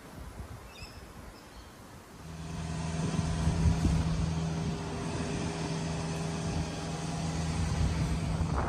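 Low outdoor street rumble, then from about two seconds in a motor engine running at a steady, unchanging pitch, louder, holding until just before the end.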